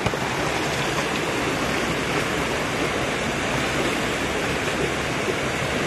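Shallow stream water rushing steadily.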